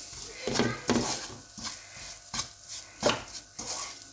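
Spatula scraping and knocking against a frying pan in a quick series of strokes, stirring flour into melted butter to make a roux.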